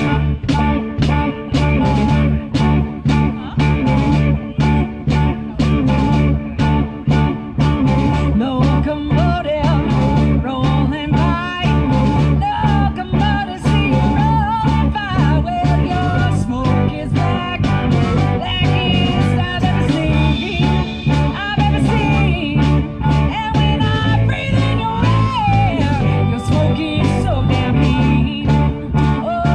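Live blues band playing an upbeat number: a drum kit keeps a steady beat under bass and electric guitar, with a woman singing lead.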